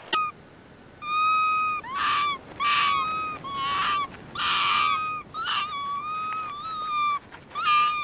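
A rapid series of about ten animal calls, some clear and drawn out at a steady high pitch, others rough and raspy.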